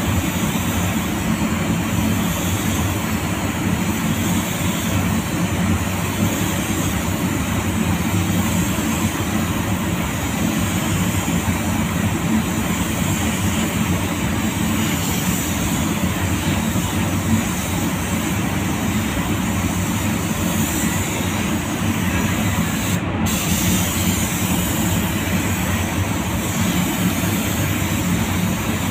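Steady rushing hiss of a compressed-air spray gun spraying clear coat over a car's metallic grey paint in a spray booth, with a low rumble underneath.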